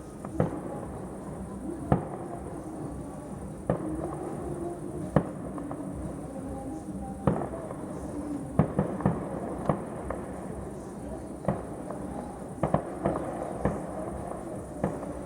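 Fireworks salute going off: a series of sharp bangs at irregular intervals, one every second or two, with a quicker cluster about two-thirds of the way through.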